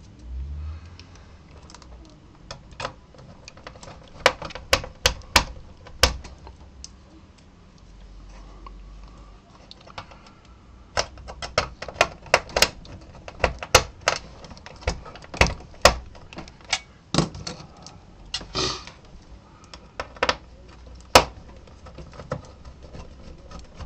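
Irregular sharp metallic clicks and taps of screws and a screwdriver against an LCD monitor's sheet-metal chassis as it is screwed back together. The clicks come in two busy stretches, a few seconds in and from about halfway to near the end.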